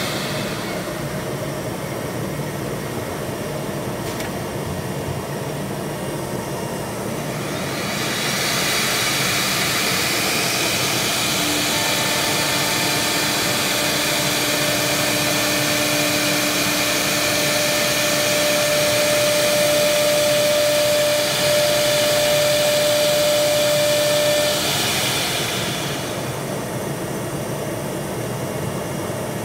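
Multi-spindle CNC router running, its spindle cutting a relief pattern into a wooden board: a steady machine whine with cutting noise that grows louder and brighter about eight seconds in and eases off a few seconds before the end.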